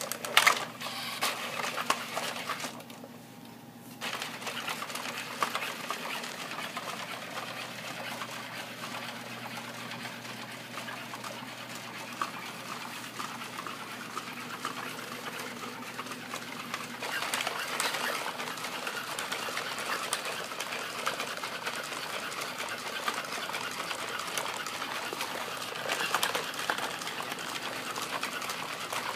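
NAO humanoid robot walking: its joint servo motors whirring with a dense run of small ticks and clatter from its moving limbs and feet, with a brief lull about three seconds in.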